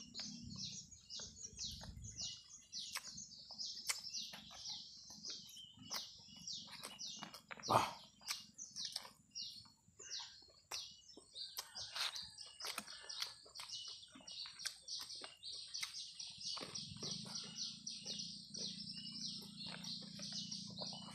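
Birds chirping in rapid, continuous runs of short high notes, mixed with wet mouth clicks and smacks of eating by hand.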